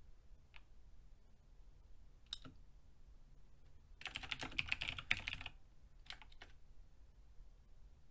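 Typing on a computer keyboard: a couple of single keystrokes, then a quick run of keys about four seconds in, and two or three more a second later.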